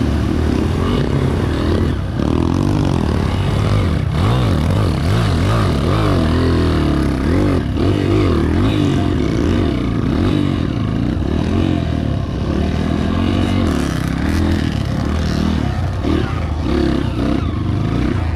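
Honda CRF230's single-cylinder four-stroke engine revving up and down as the dirt bike is ridden off-road, its pitch rising and falling constantly with the throttle.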